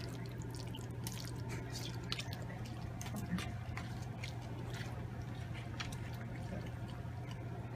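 A fork stirring microwaved mac and cheese in its cup: soft wet squishing with scattered light clicks of the fork against the cup.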